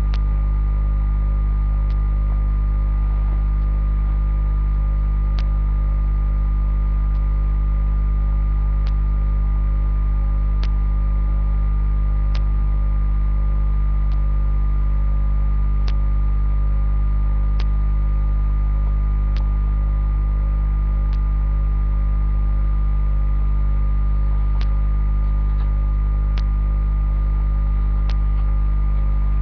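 Steady electrical mains hum with a constant level throughout, with a faint click about every second and three-quarters.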